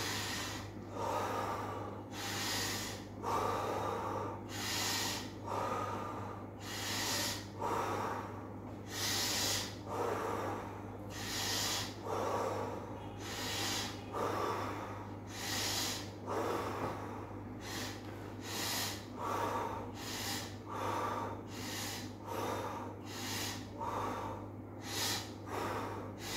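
A man breathing deeply and audibly in and out into a close headset microphone, one breath after another at about one a second, as a paced deep-breathing exercise.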